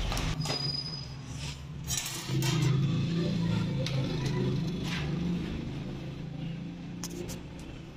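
A few sharp metallic clinks and knocks of flat steel skewers and a steel bowl as raw chicken legs are handled, over a steady low hum.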